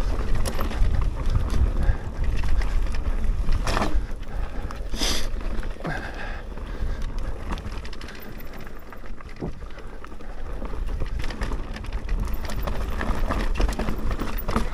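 Wind rumbling on the microphone while a mountain bike is ridden over a trail, with tyre noise and bike rattle and a couple of sharper knocks about four and five seconds in.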